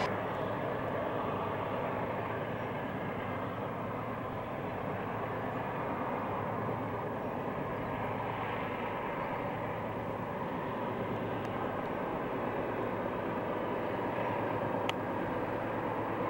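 A loaded coal train's hopper cars rolling past at a distance, a steady rumble of wheels on rail that grows a little near the end as the rear helper locomotives approach.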